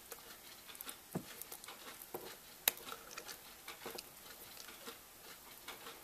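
Faint scattered clicks and rustles of fingers working at the end of a three-conductor AC cable, pulling knife-scored insulation off the green ground wire. One sharper click comes a little past halfway.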